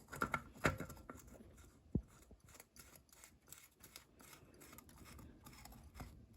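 Faint rubbing and light clicks of a new K&N oil filter being threaded onto a motorcycle engine by hand, with one dull knock about two seconds in.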